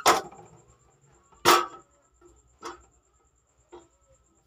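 Bosch GCO 220 cut-off saw's cutting arm and guard being worked by hand, giving a series of clunks: a loud one at the start, another as loud about a second and a half in, then two fainter knocks.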